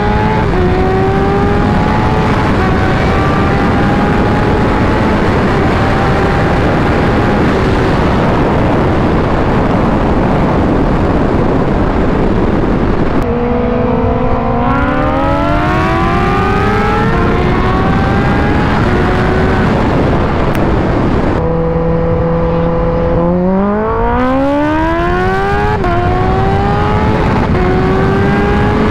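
Kawasaki Ninja H2's supercharged inline-four engine pulling hard at speed. Its pitch climbs, holds level, then sweeps up again twice, with short drops at the gear changes. Loud wind rush on the bike-mounted microphone runs through it all.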